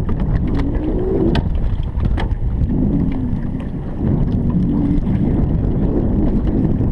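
Steady wind rumble buffeting the microphone, with a few light clicks and knocks.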